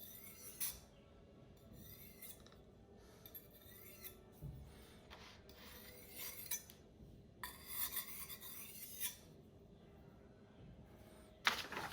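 A knife edge scraped repeatedly across a hard surface to dull it: a series of separate rasping strokes.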